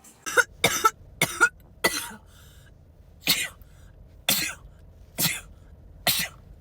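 A person sneezing in rapid succession: eight short sneezes, four quick ones in the first two seconds, then about one a second.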